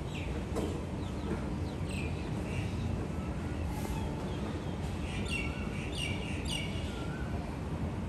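Birds chirping from the trees, with a quick run of three repeated calls a little past the middle, over a steady low background rumble.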